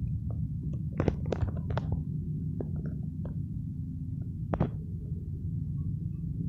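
A steady low rumble and hum, with a few sharp taps in the first five seconds, like footsteps on pavement while walking.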